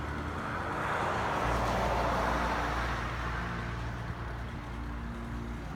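Road traffic: a vehicle passing, its rushing tyre noise swelling about two seconds in and fading away, over a steady low hum.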